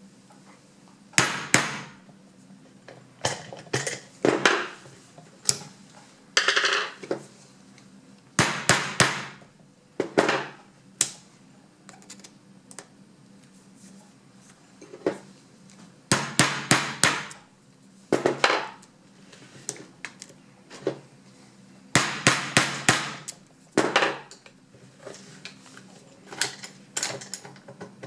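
Rubber hammer striking a narrow slotted screwdriver set on a euro cylinder's factory-crimped circlip, to cut a slot in the clip. Sharp knocks come in quick runs of two to five blows, with pauses of a second or more between runs.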